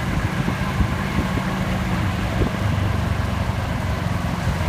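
Golf cart riding along a paved street: a steady low hum from its drive and the road, with a few light knocks.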